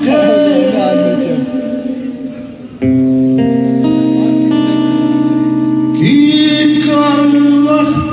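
Live rock band music: a male voice singing over guitar. The voice fades, a steady held chord comes in suddenly about three seconds in, and singing resumes around six seconds.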